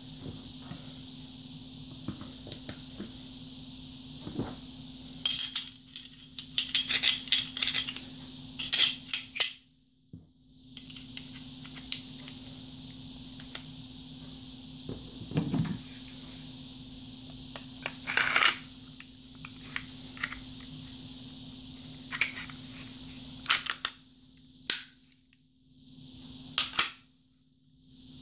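Scattered clicks, knocks and clatter of a Smith & Wesson M&P45 Shield pistol's parts being handled and fitted back together: barrel and recoil spring assembly into the slide, slide onto the frame. A steady background hum runs underneath.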